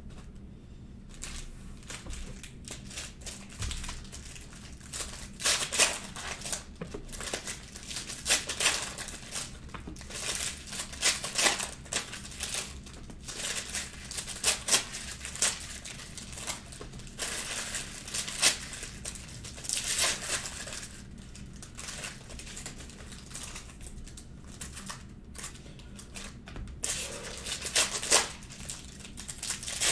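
Foil trading-card pack wrappers crinkling and tearing as packs are ripped open by hand, in irregular bursts of crackle.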